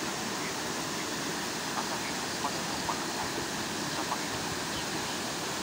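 A swollen, muddy stream in flood rushing over rocks: a steady, unbroken rush of water.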